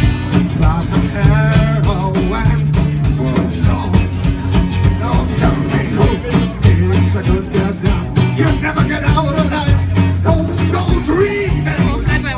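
Live band playing a country-blues number, with a moving bass line under a steady drumbeat.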